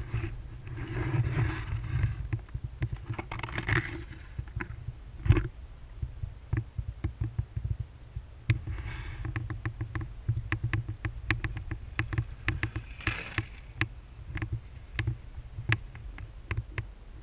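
Giant Trance Advanced mountain bike riding a rocky track, heard from a mount on the bike: a low rumble with frequent irregular sharp clacks and rattles as it goes over stones, and a few short bursts of tyre crunch on gravel.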